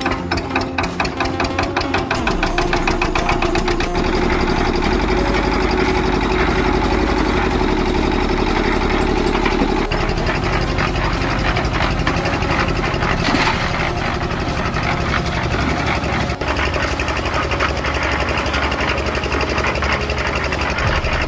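Concrete mixer running, its motor going steadily with a rapid, even knocking rattle as the drum turns.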